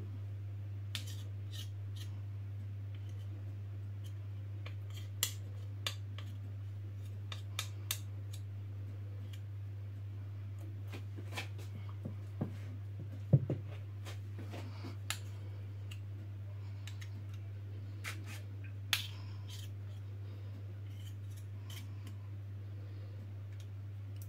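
Metal spoons clicking and scraping against each other, a plastic mixing bowl and a muffin tin as chocolate cake batter is spooned into paper cupcake cases: scattered sharp clicks, the loudest a knock about halfway through. A steady low hum runs underneath.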